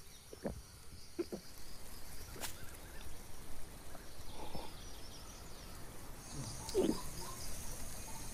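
Outdoor ambience of birds chirping, with a high steady insect buzz that starts about six seconds in. A few short soft sounds break in, the loudest about seven seconds in.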